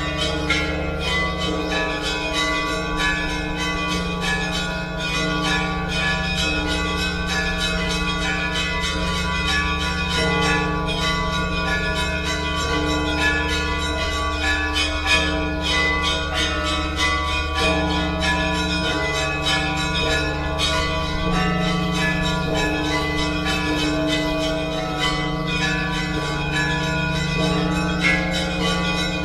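Orthodox church bells ringing together without a break: many bells of different pitches struck in quick succession over the steady hum of the large low bells.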